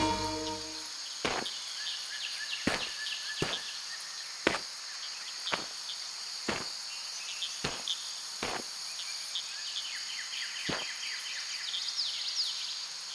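Crickets chirping in a steady high chorus, with slow footsteps on gravel, about nine steps roughly a second apart. A few short bird chirps come near the end.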